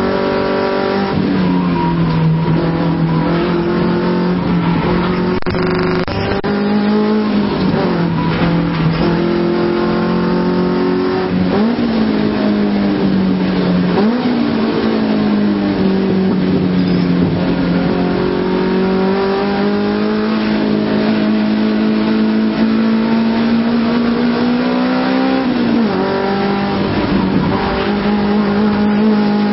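Nissan Silvia's engine heard from inside the cabin while lapping a race circuit. The note rises and falls with the throttle, with several quick drops and jumps in pitch as gears are changed.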